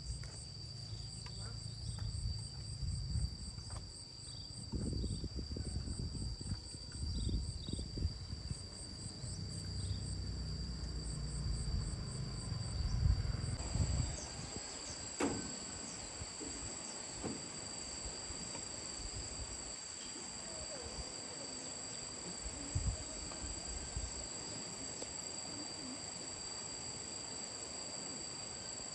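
Insects singing in two steady, shrill high tones, with a fast pulsing chirp over them for about the first twelve seconds. A low rumble runs underneath in the first half and fades about fourteen seconds in.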